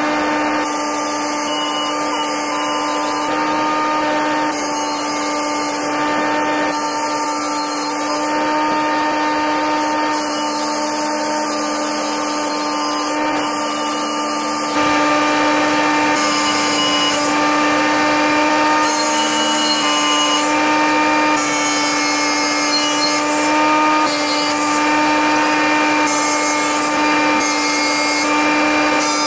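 Corded electric drill boring holes into an Indiana limestone slab, the holes for splitting the stone with feathers and wedges. It runs with a steady motor whine, and a rushing, grinding noise above it breaks off briefly every second or two. It gets a little louder about halfway.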